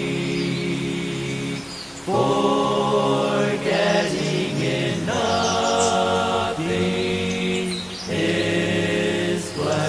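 A choir sings a slow hymn in long, held chords, phrase by phrase with brief breaks between. Birds chirp faintly above it, mostly near the end.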